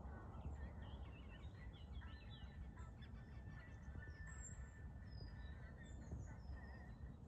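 Faint outdoor ambience of birds calling, with scattered short chirps over a steady low rumble of wind or microphone noise.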